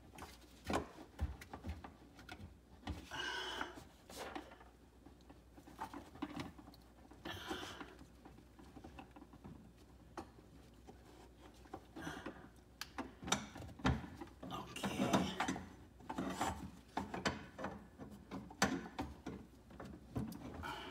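Irregular rubbing and scraping with scattered clicks as a garbage disposal unit is twisted and pushed against its sink mounting ring, trying to make it catch and lock on. It does not seat.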